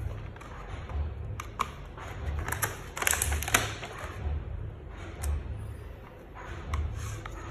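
A paper colouring book and its packaging handled on a tabletop: rustling with sharp clicks and taps, the loudest burst of rustling about three seconds in. A low, regular thumping about once a second runs underneath.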